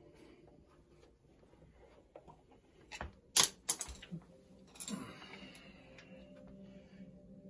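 A quick cluster of four or five sharp clicks or taps about three seconds in, followed by another click and a short rustle, over faint background music that fades out and comes back near the end.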